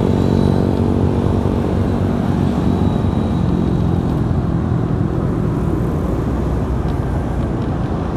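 Honda BeAT scooter's single-cylinder engine running under a low rumble of wind and road noise on the handlebar phone's microphone. The engine's steady note weakens within the first second as the scooter slows to turn in.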